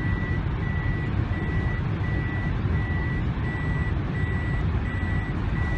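A vehicle's electronic warning chime beeping over and over at an even pace, short high beeps about three every two seconds, heard inside the cabin over steady engine and road rumble.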